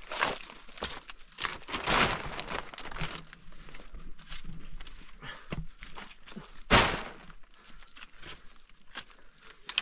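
Dry branches being laid on a plastic sheet over a stone roof: crinkling and rustling of the plastic, scraping wood, scattered knocks and footsteps, with one sharper knock near seven seconds in.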